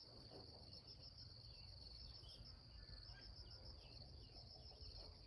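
Faint rural morning ambience: insects trill steadily in a high, evenly pulsing chirr, with a few faint, short bird chirps scattered through it.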